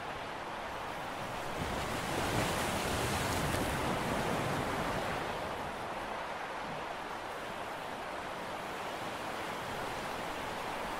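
Steady rush of sea and wind noise with wind buffeting the microphone, swelling a little about two seconds in and easing off again a few seconds later.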